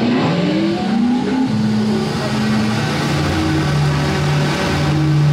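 Ride vehicle's engine sound effect revving, its pitch rising over the first second or so, then settling into a steady drone.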